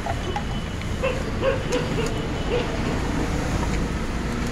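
Steady low rumble of street traffic, with scattered light clinks and rustles as bottles and plastic litter are pulled out of a tipped-over metal tree guard.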